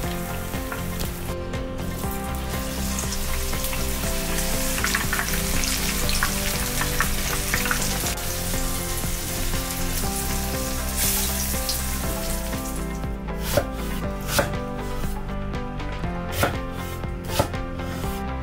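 Batter-coated vegetable tempura deep-frying in hot oil, a steady crackling sizzle. About thirteen seconds in this gives way to a knife chopping onion on a wooden cutting board, a series of sharp knocks.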